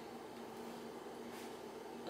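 Quiet room tone: a steady faint hiss with a low, even hum and no distinct events.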